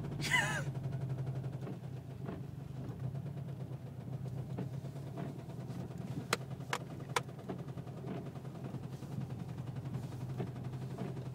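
2009 Subaru WRX engine idling steadily with sharp knocks heard now and then at uneven intervals. It has rod knock from a spun bearing after the car ran out of oil.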